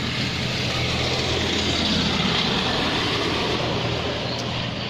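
A motor vehicle passing close by: a low engine hum with tyre and road noise that swells to a peak about two seconds in, then eases off.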